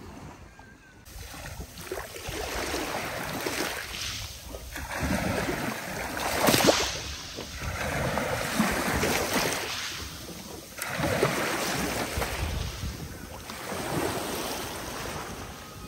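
Sea water sloshing and splashing right at the microphone, held at the surface. It swells and fades in surges every two to three seconds.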